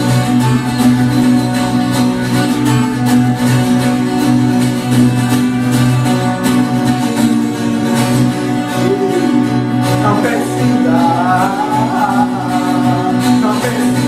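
Background music: a passage of a song with steady sustained tones, and a wavering melody line coming in about ten seconds in.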